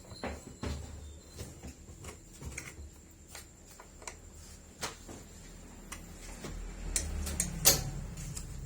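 Irregular light clicks and knocks, as of hands and metal parts being handled, with a louder knock near the end over a faint low hum.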